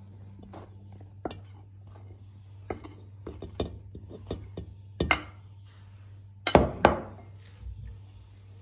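Kitchen utensil clicking and clinking against a mixing bowl while flour is stirred into dough by hand: an irregular run of light taps, with three louder ringing knocks about five seconds in and near six and a half and seven seconds in.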